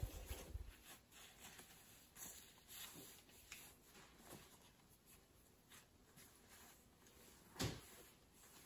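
Near silence with faint rustling of clothing and car-seat handling, a few soft thumps at the start and one louder soft thump about seven and a half seconds in.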